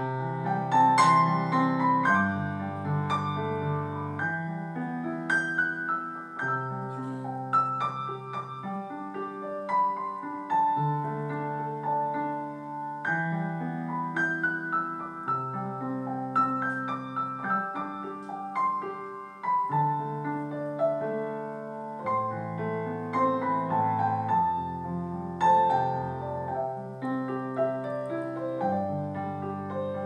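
Background piano music: held bass notes changing every second or two under a flowing melody.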